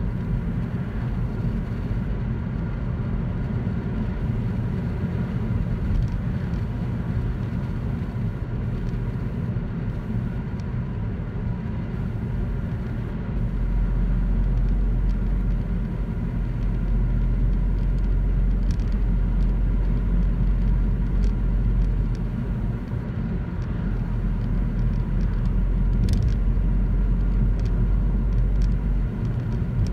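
Steady engine and tyre noise inside a moving car's cabin, a low rumble that gets louder about halfway through and eases off again near the end.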